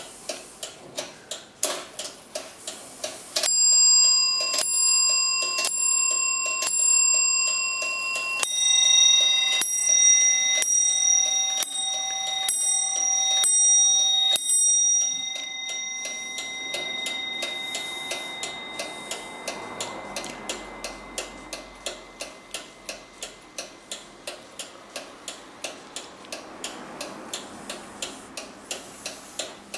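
Pierre Jaquet-Droz 18th-century table clock (Tischzappler) ticking quickly and evenly. About three seconds in it starts striking a run of strokes on its higher-pitched bell, roughly two a second, then switches to its lower bell for a second run. The last stroke rings away slowly under the continuing ticks.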